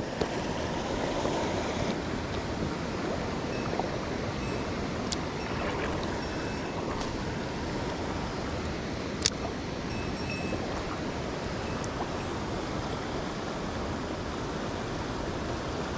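Mountain stream rushing steadily, with a few small clicks and one sharper tick about nine seconds in.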